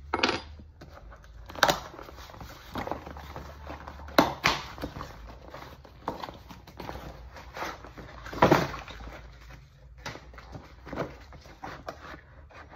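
Small cardboard box being handled and opened by hand: rustling and scraping of the cardboard flaps, with several sharp knocks and scrapes, the loudest about four and eight and a half seconds in.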